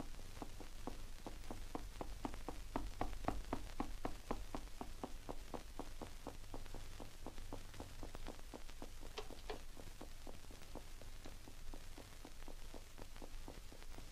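Rapid, even tapping of a shoe on a stage floor, about four to five taps a second, keeping time, over a low hum. A couple of sharper, brighter taps come a little after the middle.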